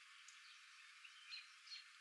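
Faint outdoor nature ambience: a few short, high bird chirps over a steady hiss, thin and with no low end.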